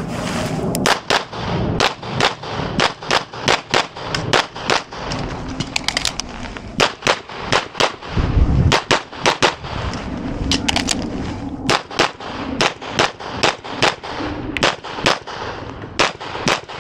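A pistol fired in a long run of rapid shots, about three a second, with brief pauses between strings, heard close from the shooter's position during a timed USPSA stage. A brief low thump comes about eight seconds in.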